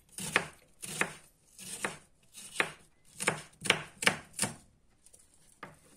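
Kitchen knife slicing a peeled onion into fine pieces on a wooden cutting board: a series of sharp knife strokes hitting the board, about two a second, stopping about four and a half seconds in, with one more cut near the end.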